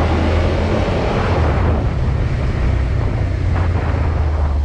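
Suzuki motorcycle engine running steadily while riding along a street, a low drone with heavy wind rush over the microphone.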